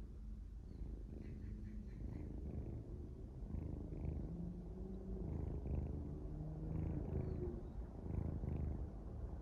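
Sleeping kitten snoring, a low rumble that swells and eases.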